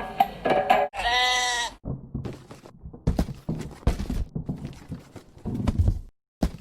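Percussive music ends about a second in and gives way to a single wavering animal bleat lasting under a second, followed by a few seconds of irregular knocks and rustling.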